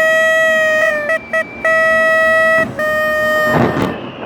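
A horn honking loudly in a rhythmic pattern: a long blast, two quick short beeps, then two more long blasts, all on one steady note.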